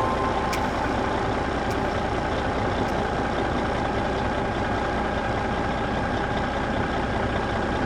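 Steady engine-like running noise, with a few faint clicks in the first few seconds.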